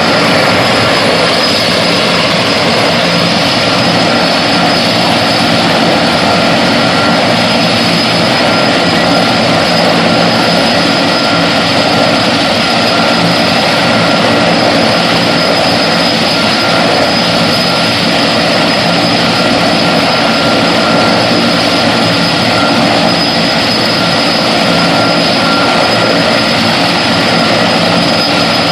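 Firefighting helicopter running steadily, its turbine engines giving a continuous high whine over the even rush of the rotors.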